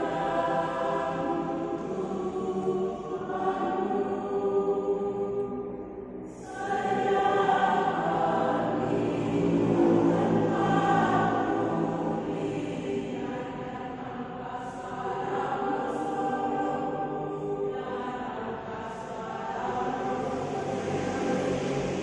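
A choir singing in long held phrases, with a short break about six seconds in before the voices come back louder.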